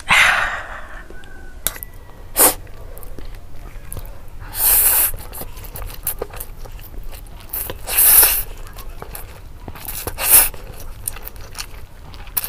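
Close-up slurping of spicy noodles: three long slurps, with small chewing and mouth clicks between them.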